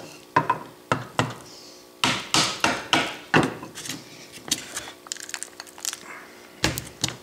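South Bend 9-inch lathe apron being tipped and knocked on the bench to shake out loose metal chips: a string of sharp knocks and clatters with chips rattling out, busiest about two to three and a half seconds in and with two more knocks near the end.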